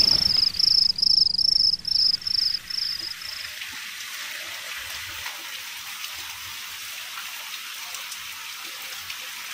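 Cricket chirping, a high pulsed chirp about three times a second that fades out over the first three seconds, over a low rumble. Then steady rain hiss on floodwater.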